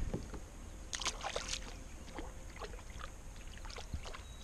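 Scattered light water splashes and small knocks around a small boat, densest about a second in, over a low rumble of wind on the microphone.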